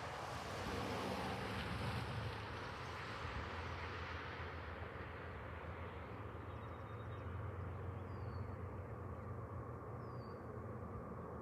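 Steady low drone of a distant diesel locomotive engine, with a broad rushing noise that fades away over the first few seconds. A few short bird chirps come near the end.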